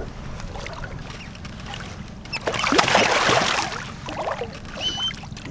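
A hooked paddlefish splashing and thrashing at the water's surface right beside the boat hull, with one big splash about two and a half seconds in that lasts about a second.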